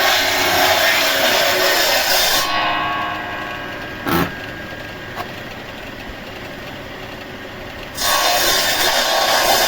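Large sawmill saw cutting through wood, a loud rasping cut that eases off about two and a half seconds in. A quieter stretch follows with a sharp knock, then the saw bites into the wood again about eight seconds in.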